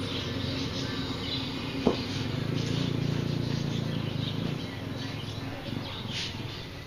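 Birds chirping in short calls over a low steady motor hum that fades out about four and a half seconds in, with one sharp click near two seconds.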